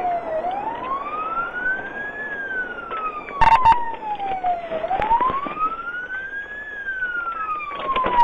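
Police car siren in wail mode, its pitch rising and falling slowly, a full cycle about every four and a half seconds. A short loud crackle cuts in about three and a half seconds in.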